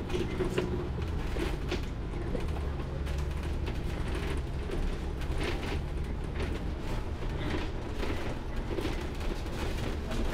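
Inside a moving double-decker bus: a steady low engine and road rumble, with frequent creaks and rattles from the bus body.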